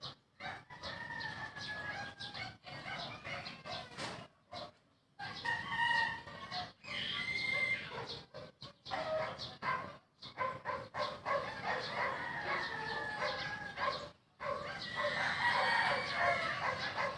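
Chickens calling, with roosters crowing in several drawn-out calls that bend in pitch. The sound cuts out briefly now and then.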